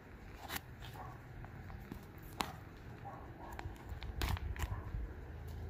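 Foil ration pouch crinkling in the hands and being torn open along its top, with a few separate sharp crackles and rips.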